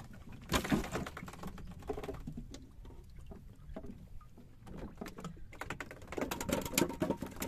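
Irregular knocks and clicks of handling aboard a small fishing boat, with one louder thump about half a second in and busier clatter near the end.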